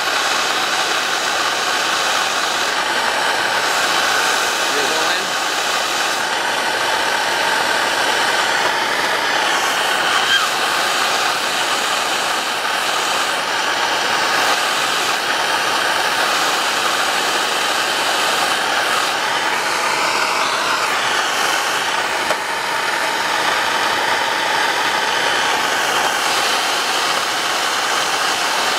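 Propane torch burning with a steady hiss, heating a copper pipe joint for soldering.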